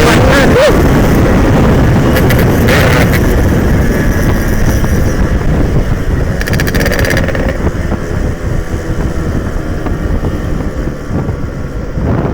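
Yamaha RX-King two-stroke motorcycle running at speed while being ridden, its engine noise mixed with wind buffeting the microphone. The sound is loudest at first and eases off somewhat from about four seconds in.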